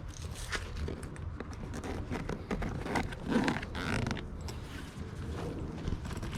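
Fabric travel bag being handled by hand: a zipper being worked open, with the material rustling and creaking in irregular strokes.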